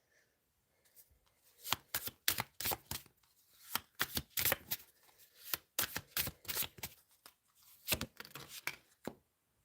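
Tarot deck being shuffled by hand: a run of quick, irregular card slaps and flicks, starting about a second and a half in.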